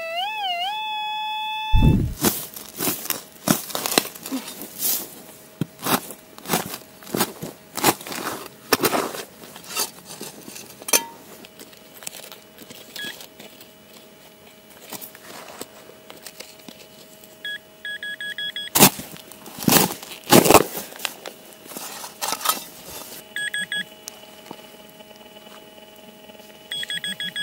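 Metal detector target tone wavering in pitch, then held steady for about two seconds before cutting off. It is followed by a long run of irregular thuds and scrapes of a spade digging into earth and clods being broken up. Near the end a handheld pinpointer gives short high beeps over the loosened soil.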